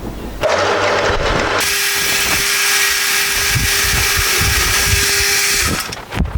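Machine drill running and drilling a small hole in a steel part. It starts about half a second in, settles into a steady run with a held tone, and cuts off shortly before the end.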